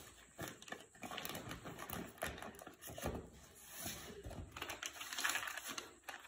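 Mangoes being picked over by hand in a bamboo basket lined with plastic sheeting: plastic rustling and fruit knocking softly against fruit and wicker, in an irregular patter of small clicks and knocks.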